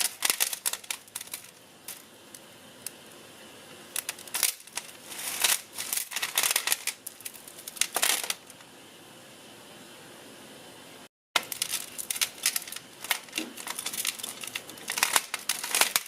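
Costume jewelry being handled and untangled: metal chains and beads clinking and rustling in irregular bursts, with a quieter stretch about two-thirds in and a brief dropout.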